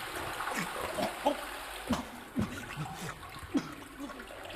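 A man retching and gagging in a series of short heaves over running water.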